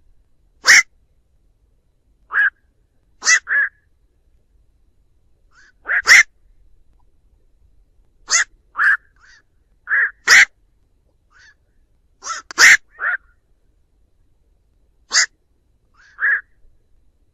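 Black-crowned night heron calls: about fifteen short calls, singly or in quick pairs, every second or two.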